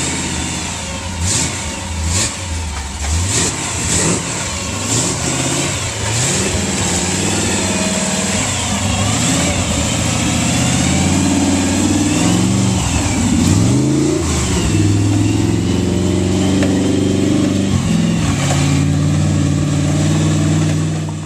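Four-wheel-drive truck engine revving hard and unevenly, its pitch rising and falling as the truck is driven through mud and rough trail. There are a few knocks in the first few seconds, and the sound cuts off suddenly at the end.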